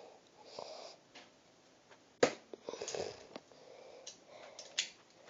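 Plastic clicks and clacks from a Lego butterfly knife being handled and flipped: one sharp click about two seconds in, then a few lighter ones, with soft sniffs and breathing between them.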